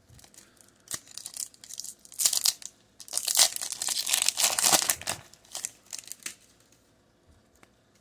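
Foil wrapper of a Pokémon TCG booster pack crinkling and tearing as it is pulled open by hand, loudest from about three to five seconds in, then dying away near the end.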